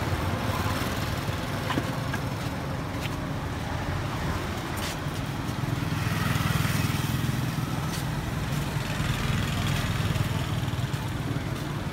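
Small motorcycle engines running in street traffic: a steady low drone that swells about six seconds in.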